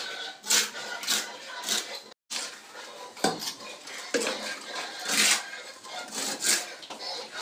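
Steel tie wire being twisted tight by hand around a wooden brace to hold a door jamb: repeated scratchy metallic scraping and clinks of wire on wood, about once a second.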